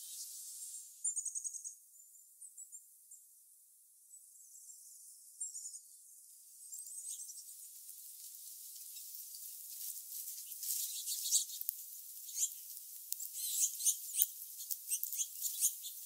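Small songbirds calling: high-pitched chirps and short rapid trills, then a busy run of quick, high ticking chips that grows louder toward the end.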